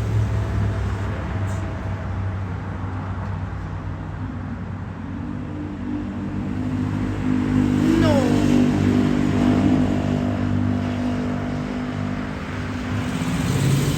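Boeing 747-400 jet engines at takeoff thrust: a steady roar with droning tones that builds and is loudest about halfway through.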